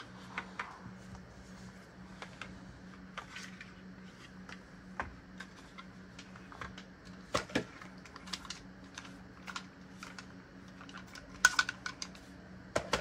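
Irregular plastic clicks, taps and light knocks of small objects handled on a desk: a small white remote, a phone and a headset being picked up and set down, with a short clatter about eleven seconds in. A steady low hum runs underneath.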